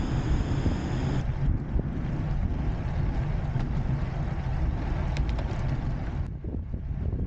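Wind buffeting the microphone of a camera on a bicycle moving along a road, a steady low rumble. The hiss above the rumble drops away about a second in.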